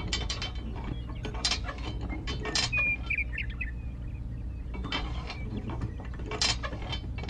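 Small metal parts clicking and tapping as fingers fit a screw into a miniature model tractor, with a brief high chirp about three seconds in over a steady low hum.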